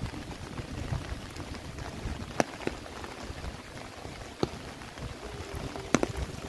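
Light rain falling on vegetation, a steady hiss with separate drops clicking sharply close by, a few at a time, coming more often near the end.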